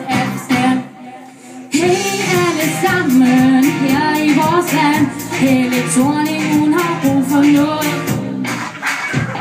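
A young female singer singing a pop song with band accompaniment. The music drops away briefly about a second in, then the singing and band come back in.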